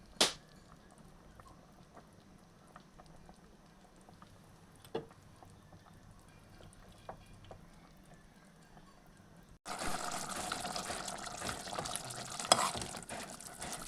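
Mushroom curry boiling in a pot. The first part is faint, with a few light clicks of a utensil on the pot; about nine and a half seconds in, a much louder steady bubbling hiss starts abruptly.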